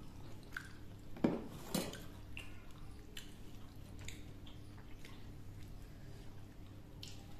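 A meal of pakhala (rice in water) being eaten: faint chewing and wet squishing with small clicks of dishes, and two sharper knocks a little over a second in.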